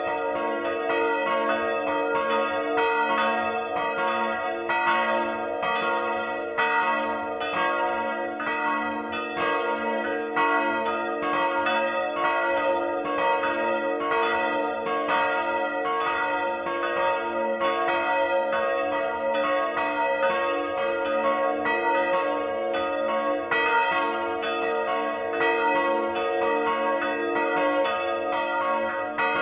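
A peal of swinging bronze church bells, heard close up inside the belfry. The set is two 1952 Rincker bells and a 1759 Johann Peter Bach bell. Their clappers strike several times a second in an uneven, overlapping pattern, over a continuous ringing hum.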